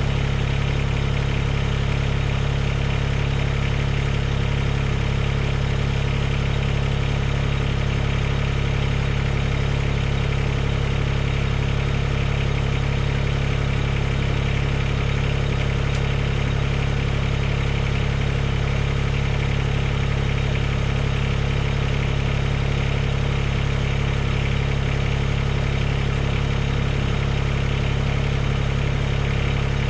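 Mahindra eMax 20S HST compact tractor's diesel engine idling steadily, with no change in speed.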